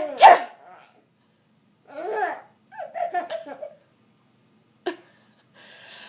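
Baby laughing: a loud vocal burst right at the start, then short bursts of giggling about two and three seconds in.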